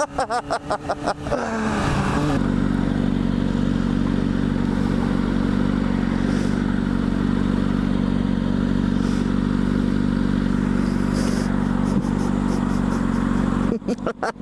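Kawasaki Ninja ZX-6R inline-four engine rising in revs about two seconds in, then running at a steady speed under way. Near the end it gives way to a rapid, even pulsing.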